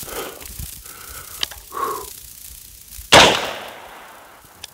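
A single rifle shot about three seconds in, followed by a trailing echo. A much fainter sharp click comes earlier.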